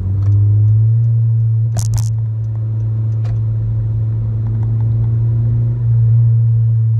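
Honda Civic Si's 2.4-litre four-cylinder with an axle-back exhaust, under throttle, heard from inside the cabin as a loud, steady, deep drone. It gets louder right at the start as the driver gets on the throttle. Two sharp clicks come about two seconds in.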